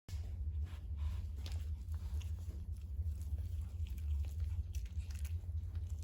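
Dog chewing: irregular small crunching clicks over a steady low hum.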